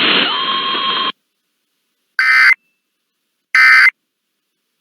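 Emergency Alert System end-of-message data bursts: two short, identical buzzy digital squawks about a second and a half apart, signalling that the tornado warning broadcast is over. Before them, about a second of radio hiss cuts off abruptly.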